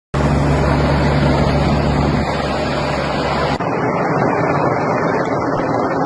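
A large helicopter's rotor and engine running steadily overhead, a loud, even roar with a low hum, mixed with wind on the microphone. A little over halfway through the low hum drops away and the sound turns thinner.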